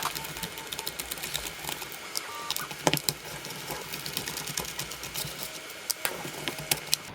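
Rapid, irregular small clicks and taps of a screwdriver, screws and plastic parts as the rear end of a Traxxas Stampede RC truck is unscrewed and worked loose.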